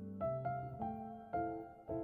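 Instrumental background music with a piano-like keyboard melody, a new note about every half second.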